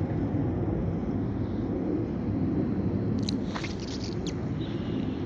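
Low steady rumble of a diesel shunting locomotive running as it moves slowly away down the tracks. A few brief high-pitched squeaks come about three to four seconds in.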